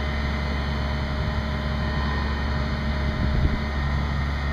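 Mobile crane's diesel engine running steadily under load as it hoists a heavy rooftop HVAC unit, a constant low rumble with a steady hum.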